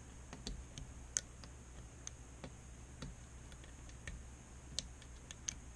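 Irregular small metallic clicks and ticks of a lock pick and tension wrench working the pins inside a Schlage Primus interchangeable-core lock, over a faint steady low hum.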